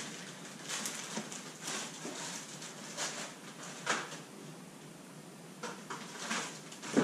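Plastic packaging crinkling and rustling as parts are handled in a cardboard box, with a light knock about four seconds in and a sharper knock near the end.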